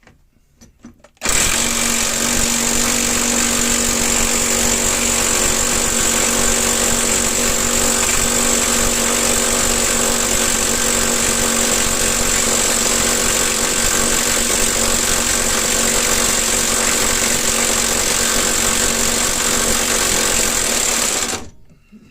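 Impact wrench hammering continuously for about twenty seconds on a tight, seized subframe bolt. It starts abruptly about a second in and cuts off shortly before the end.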